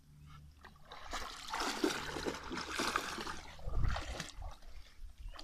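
Alaskan malamute puppy wading through shallow pond water, its legs splashing and sloshing for about three seconds from a second in. Wind rumbles on the microphone throughout.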